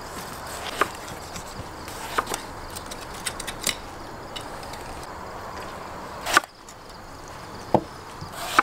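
Kitchen knife slicing eggplant into rounds, each cut ending in a sharp knock on a wooden cutting board; several knocks at irregular intervals, the loudest about two-thirds of the way through.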